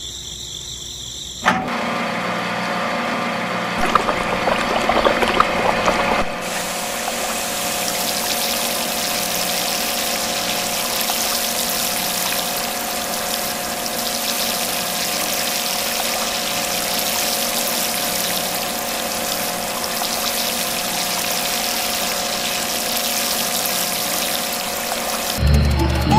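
Small electric water pump switched on about a second and a half in, then running steadily with an even hum while water pours.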